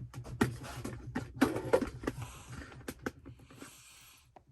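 Bench vise being tightened on a metal knife jig: a run of irregular clicks, knocks and scraping, with a brief squeaky scrape about one and a half seconds in.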